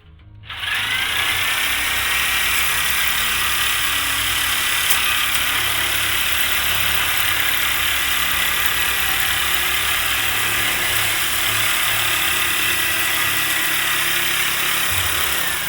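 Electric tin cutter shearing a sheet of roofing tin: the motor spins up about half a second in to a steady high whine over a harsh hiss of cutting metal, then winds down near the end. The cutter is working well.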